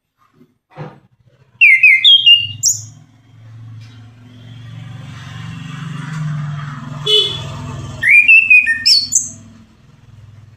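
Orange-headed thrush singing two short, loud phrases of quick, sliding whistled notes, one about a second and a half in and the other about eight seconds in. A low steady hum sounds underneath between the phrases.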